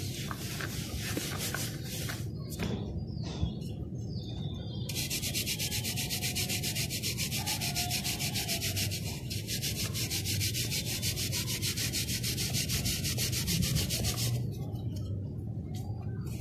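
Gritty dirt-and-sand mix being rubbed and crumbled, a dry rasping scrape; from about five seconds in to near the end it turns into a fast, even rasping that stops abruptly.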